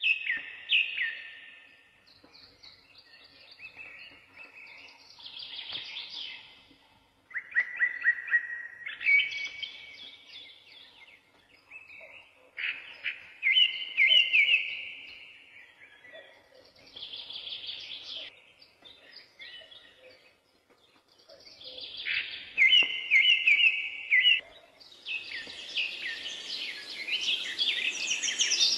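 Songbirds singing: loud phrases of rapid, repeated chirping notes come every few seconds, growing denser and higher near the end.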